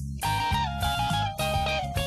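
Background music led by guitar, with held melody notes over a steady bass line.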